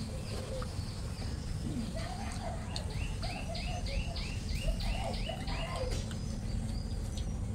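An animal chirping in the background: a quick run of about ten short rising chirps, roughly three a second, from about two and a half seconds in until six seconds in, over a steady low hum.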